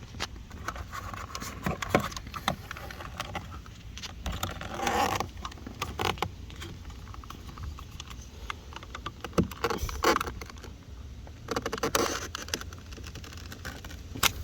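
Scattered plastic clicks, taps and scrapes from handling a car door panel while its electrical connector is worked loose. A steady low rumble runs underneath.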